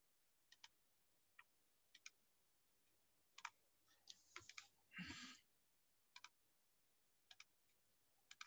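Faint, scattered computer mouse clicks, a single click or a quick pair every second or so, with a brief rustle about five seconds in.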